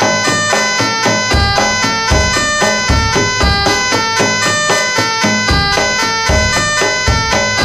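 Jaranan ensemble music: a nasal double-reed slompret (shawm) playing a quick melody over steady metallophone strikes and deep kendang drum beats.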